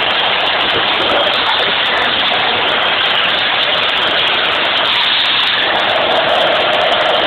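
Electric demolition hammer chiselling into rock, a loud, continuous din. A steady hum comes in near the end.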